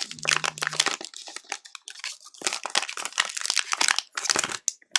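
Clear plastic wrapper of a trading-card cello pack crinkling in irregular crackles as gloved hands handle it and pull it open.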